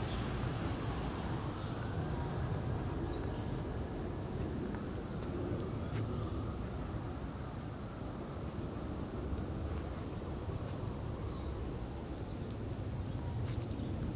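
Outdoor ambience: a steady low rumble, with insects such as crickets trilling high and steadily in repeated pulsed groups.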